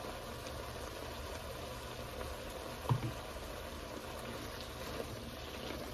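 Dip ingredients (cream cheese, sour cream and butter) gently sizzling and bubbling in a skillet on the stove, a steady low simmer. A single brief thump about three seconds in.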